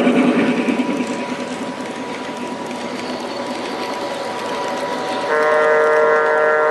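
G-gauge model freight cars rolling past close by, their wheels rattling and clicking over the rail joints. About five seconds in, a steady multi-tone train horn starts suddenly and holds.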